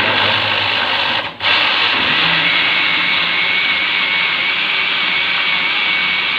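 Kenwood countertop blender motor running at high speed, blending milk and mango chunks into a milkshake. It cuts out for a moment just over a second in and starts again, and a steady high whine joins its noise a couple of seconds later.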